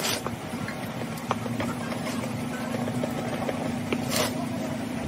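Knife blade scraping the plastic lid edge of a lead-acid battery case: two short scrapes, one at the start and one about four seconds in, with small clicks between. Under it runs a steady low engine-like hum.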